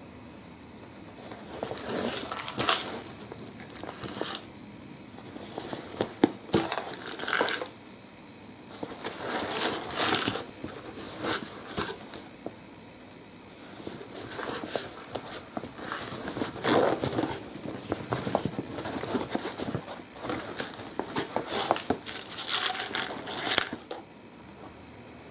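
Non-woven fabric tote bag rustling and crinkling in irregular bursts as it is handled and opened, with short pauses between, over a faint steady high hiss.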